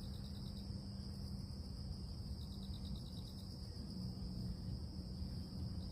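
Insects, crickets by the sound, calling: a steady high drone with a short pulsed trill that comes about every three seconds, over a low steady hum.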